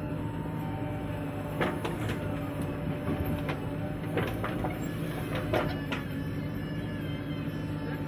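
Diesel engine of a JCB 3DX backhoe loader running steadily under load as the hydraulic arm swings and digs, with several sharp knocks and clanks between about two and six seconds in.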